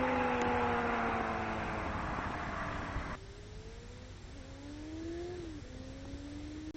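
Yamaha FZS 600 Fazer motorcycle's inline-four engine with a Sebring aftermarket exhaust, moving away after a fly-by, its pitch falling as it fades. About three seconds in the louder sound cuts off suddenly, leaving the engine faint in the distance, rising in pitch as it accelerates with a drop at each gear change.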